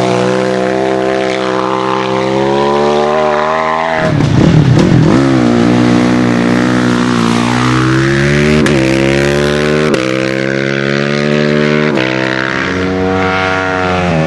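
Racing motorcycle engines pulling hard up a hill climb. The pitch climbs steadily, drops sharply about four seconds in as the throttle is shut for a bend, then rises again through several gear changes before falling near the end.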